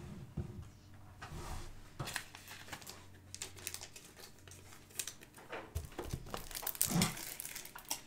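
Foil trading-card pack wrappers crinkling, along with soft clicks of cards being handled, in scattered bursts that grow busier in the second half.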